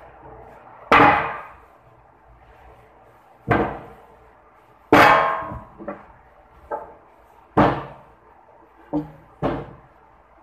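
Eight sharp knocks of a long wooden rolling pin against a stone worktop, at uneven intervals, each ringing briefly; the loudest come about a second in, at the middle and about three-quarters through, with two lighter taps between them and a quick pair near the end.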